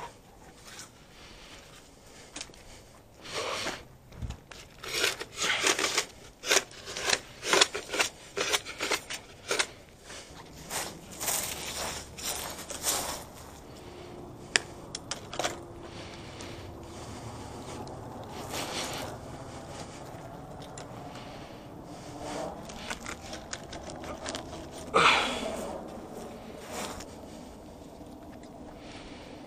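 Coax cable being handled and dragged, with a quick run of scraping and rustling strokes for several seconds, softer handling noise after that, and one louder scrape near the end.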